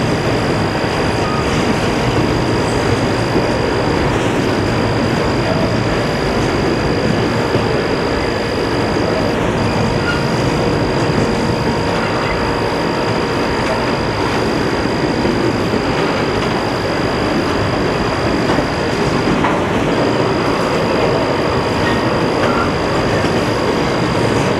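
Norfolk Southern intermodal freight train's stack and well cars rolling past, a steady, unbroken rumble of wheels on rail. A steady high-pitched tone runs through it, dropping out briefly a few times.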